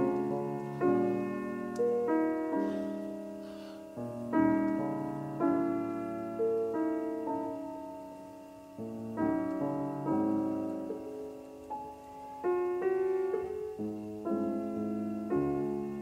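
Slow solo piano music: quiet chords struck every second or so and left to ring out.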